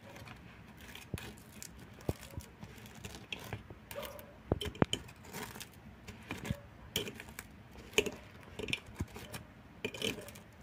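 Serrated kitchen tongs clicking and scraping against a glass baking dish as a fried banana fritter is turned and pressed into granulated sugar: irregular light clicks and scrapes.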